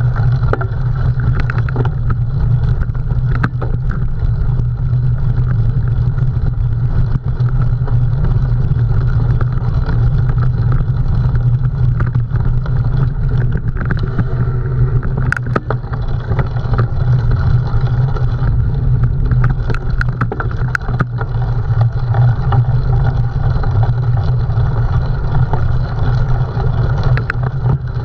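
Cyclocross bike ridden at race pace: a steady rumble of wind and tyre noise on the rider's own camera, with scattered sharp clicks and knocks from the bike.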